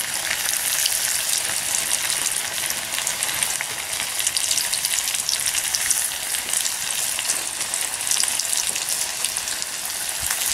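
Battered zucchini slices deep-frying in hot oil in a camp skillet over a wood-burning stove: a steady sizzle with dense crackling, as more slices are lowered in with tongs.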